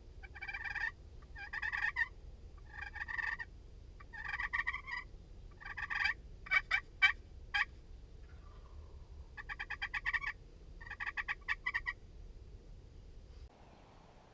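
Wild turkey calling: a series of rattling calls about a second long, a quick run of short sharp notes around the middle, then more rattling calls.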